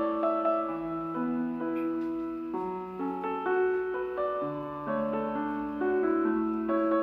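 Background piano music: slow chords of held, overlapping notes that change every half second to a second.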